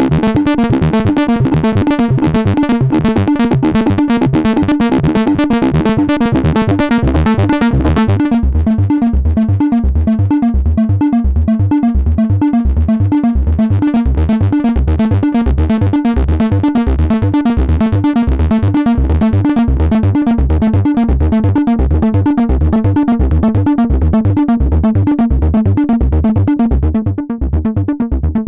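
Behringer System 100 analog modular synthesizer playing a fast, sequenced mono acid bass line of short repeated notes. About eight seconds in the sound turns duller as the filter closes down.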